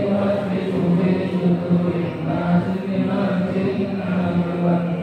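A group of men chanting an Islamic prayer recitation together in unison, in long, low held notes.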